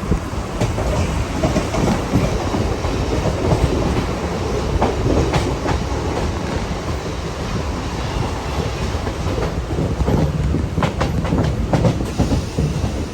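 Mumbai suburban local (EMU) train running along the track, heard from on board, its wheels clattering steadily over the rail joints, with clusters of sharper clicks about five seconds in and again near the end.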